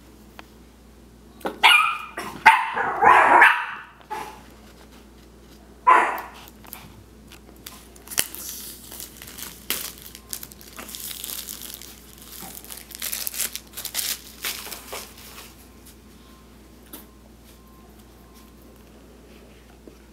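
A dog barks in a quick run of barks during the first four seconds and once more about six seconds in. From about eight seconds in to about fifteen, the clear plastic shrink wrap on a phone box crinkles and rustles as it is peeled off by hand.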